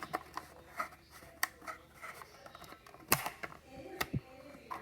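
Scattered plastic clicks and knocks from a smoke alarm being handled as its battery compartment is pried open, with two sharper clicks in the second half.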